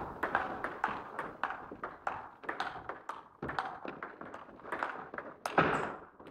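Table tennis rally: a celluloid ball clicking off rubber bats and the tabletop, two or three sharp ticks a second. A louder thump comes about five and a half seconds in.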